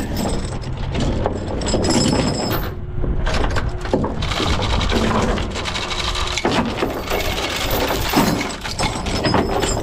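Steel tie-down chain clanking and rattling as it is pulled free and gathered up by hand, with links knocking against a wooden trailer deck, in a string of sharp irregular clinks.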